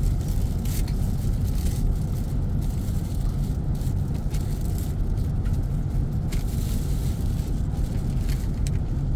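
Airliner cabin noise: a steady low rumble with scattered light rattles and clicks.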